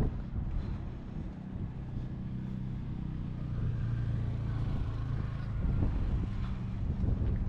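An unseen engine's low, steady hum, growing louder through the middle and staying strong toward the end.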